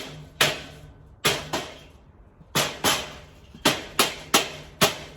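Rubber mallet striking the steel shelving frame about ten times in quick pairs and groups, each a sharp knock with a short decay, beating the beams' rivets tight into the uprights.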